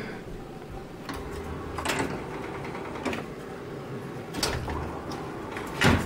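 Claw machine's gantry motors whirring in two short runs as the claw is steered, with a few clicks and a sharp click near the end.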